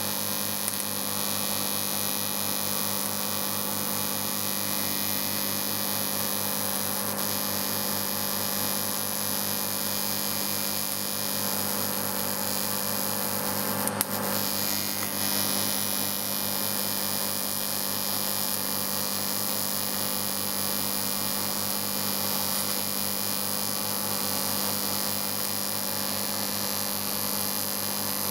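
TIG welding arc burning steadily: a constant electric buzz with hiss, broken by one sharp click about halfway through.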